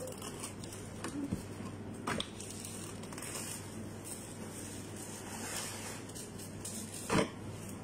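Soft rustling of paper and plastic gloves as sandwich wraps are handled and wrapped, over a steady low hum, with a few brief knocks, the sharpest about seven seconds in.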